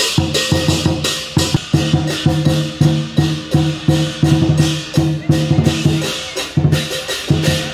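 Lion dance percussion: a large Chinese lion drum beaten in a fast, steady rhythm, several strokes a second, with cymbals clashing along.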